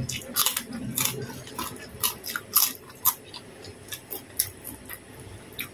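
Close-up chewing of a mouthful of food, with irregular wet smacks and clicks of the mouth, busiest in the first three seconds and thinning out after that.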